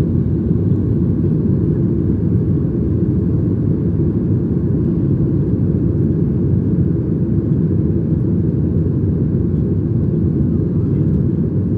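Steady cabin noise inside a Boeing 737 MAX: a constant low rumble of engines and airflow with no changes.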